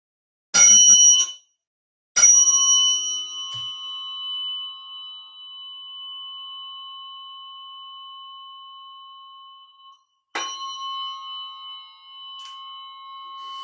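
Tuning fork struck for a sound-healing session: a brief loud clash about half a second in, then a strike at about two seconds that rings with a clear high tone and fades slowly for about eight seconds. It is struck again about ten seconds in and keeps ringing.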